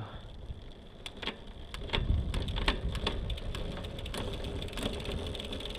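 Bicycle 1x drivetrain turned over by hand: the chain runs over the rear cassette and through the derailleur with a rapid ticking, and separate clicks sound as gears are shifted to check the shifting. The ticking grows denser and louder about two seconds in.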